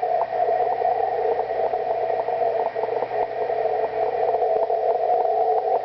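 Shortwave receiver audio of a VLF station's MSK data transmission: a steady warbling rush held in a narrow pitch band, with many sharp static clicks from distant lightning scattered through it and a faint low hum underneath.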